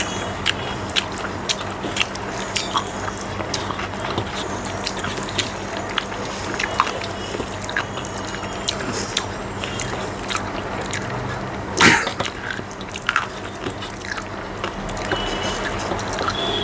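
Fingers mixing and gathering rice and egg on a metal plate, with chewing: a steady stream of small wet clicks and squishes, and one louder click about twelve seconds in, over a low steady hum.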